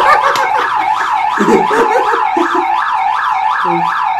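Electronic siren-like alarm sweeping rapidly up and down, about three sweeps a second: a lie-detector alarm going off, signalling that the answer was a lie.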